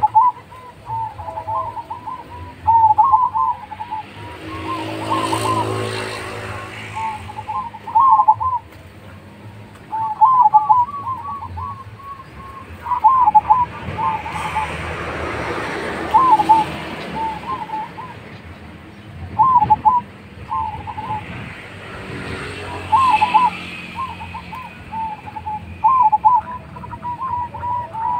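Caged zebra dove (perkutut) singing: repeated phrases of short, rolling coos, one phrase every second or two without a break. Three times a rushing noise of passing road traffic swells and fades under the song.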